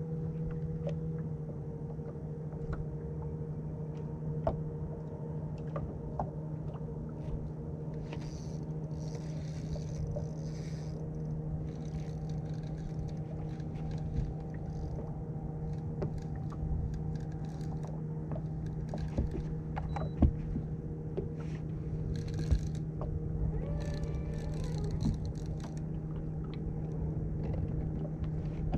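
Electric trolling motor humming steadily, with scattered light clicks and knocks and a few short hissy bursts.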